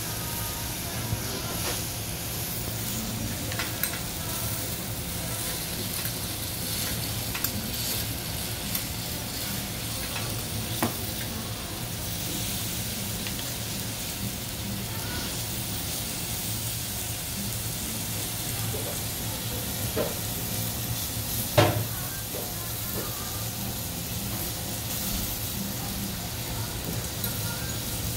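Kobe beef sizzling on a steel teppanyaki griddle: a steady hiss, with scattered light clicks of the knife and fork against the steel as the meat is cut. One louder clack comes about three quarters of the way through.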